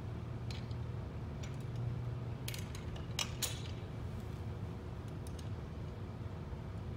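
Scattered small metal clicks and clinks from fitting a tubular tripod leg onto a tripod with a quarter-inch bolt and lock nut, the loudest pair a little over three seconds in. A steady low hum runs underneath.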